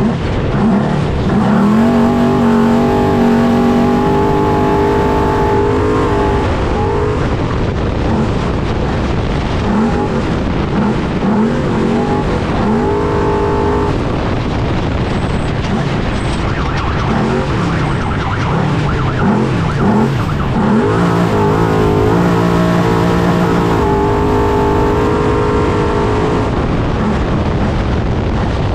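Trophy truck's engine heard from onboard, revving hard. The pitch climbs and holds for several seconds near the start, blips up and down several times in the middle, and climbs and holds again later, over a steady rough noise of the truck running.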